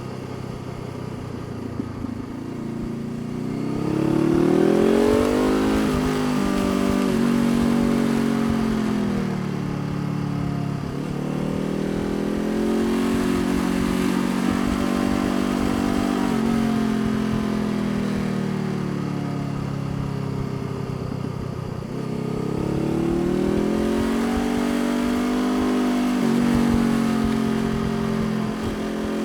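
Honda CBR500R parallel-twin engine under way. Its pitch climbs under throttle and drops back at each gear change, with a steady cruising stretch in the middle.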